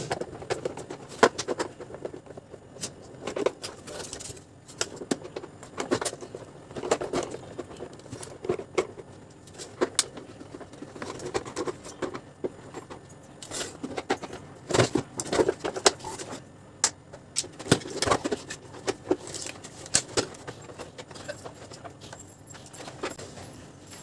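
Screwdriver backing screws out of the plastic housing of a canister vacuum cleaner, with the housing then being opened: irregular clicks, taps and plastic knocks with no steady running sound.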